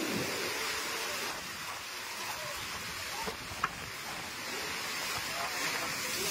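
Storm-surge seawater washing through a flooded alley, a steady rush of water. A single short knock sounds a little past halfway.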